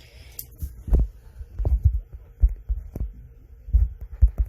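Irregular dull thumps and taps close to the microphone, about seven in four seconds, over a low hum.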